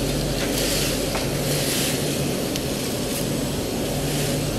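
Steady hum of running food-processing machinery, with crisp vacuum-fried mushroom chips rustling as a hand stirs through them in a steel basket.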